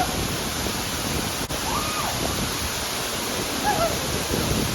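Waterfall rushing: a steady, full roar of falling water.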